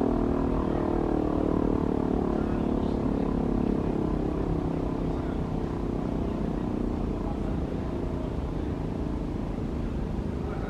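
L141 factory siren winding down after its test signal: its steady tone fades and sinks in pitch over the first few seconds, leaving a low rumble.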